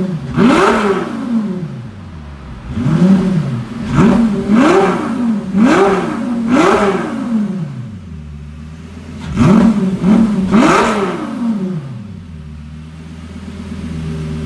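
2008 Lamborghini Gallardo V10 with a titanium X-pipe exhaust, revved from idle in about seven quick throttle blips, each rising and falling back: one near the start, four in a row, then two more. It settles to a steady idle near the end.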